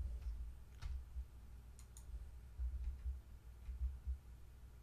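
A handful of sparse computer mouse clicks over a faint low rumble, including a close pair about two seconds in.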